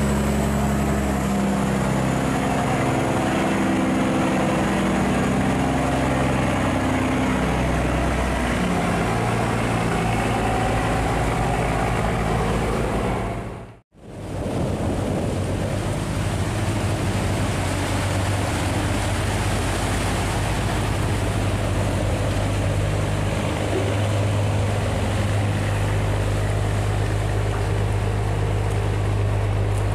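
Barge engines running steadily, a low drone with the noise of churned water over it. The sound drops out for a moment about fourteen seconds in, and then a similar engine drone carries on.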